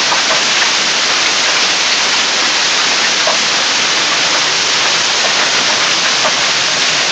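Hailstorm: golf-ball-size hail and rain pelting down together in a steady, dense hiss.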